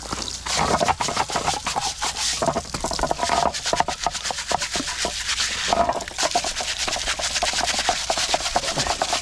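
A small hand brush scrubbing loose sand and dirt off a rough aluminum casting, in quick, irregular scratching strokes.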